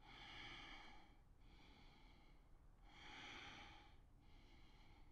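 Faint, slow, deep breathing by the yoga teacher: about two full breaths, each a soft in-breath and out-breath of a little over a second.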